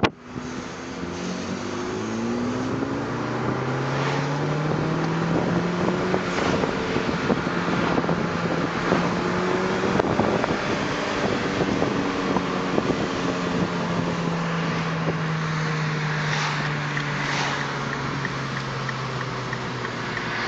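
Renault Mégane RS engine and exhaust heard from inside the cabin while driving. The revs climb in a few quick rising sweeps through the gears in the first seconds, then hold a steady drone while cruising and ease off slightly near the end, with road and wind noise throughout.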